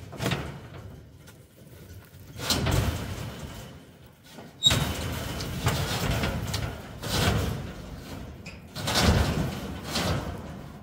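A steel sheet being dragged out of a storage rack, metal scraping against metal in several scrapes about a second long each, with a sharp ringing clank about four and a half seconds in.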